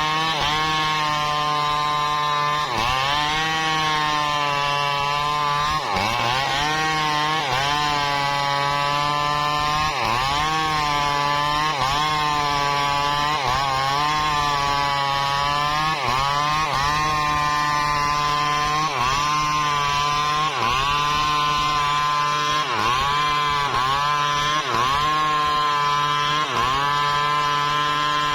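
Two-stroke chainsaw cutting wood at high revs, its engine note dipping and recovering every second or two as the chain bites into the cut.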